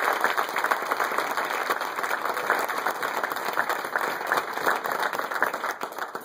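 Audience applauding: dense, steady clapping from many hands that dies away at the very end.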